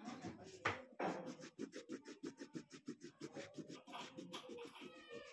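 Orange colouring stick scratching on paper in quick back-and-forth strokes, several a second, as an area is filled in with colour; one stroke under a second in is louder than the rest.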